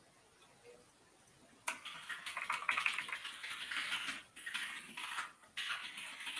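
Rapid typing on a computer keyboard: a dense run of key clicks starting a little under two seconds in, with two brief pauses.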